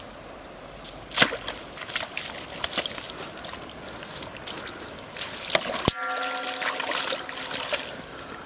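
A hooked catfish splashing and thrashing in shallow river water as it is hauled in on a rod and line, with a sharp splash about a second in and many smaller splashes after it. A steady pitched hum starts abruptly near the end.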